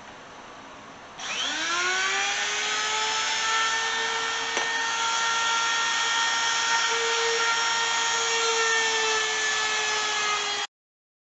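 Handheld trim router motor spinning up about a second in to a steady high whine, running as it is pushed along a board to cut a channel, over the steady rush of a dust collector. The sound cuts off abruptly near the end.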